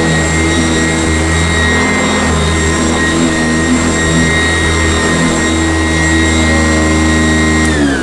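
Sanitaire commercial upright vacuum cleaner running steadily on carpet, its motor whine holding one pitch. Near the end the whine starts to drop in pitch as the motor winds down.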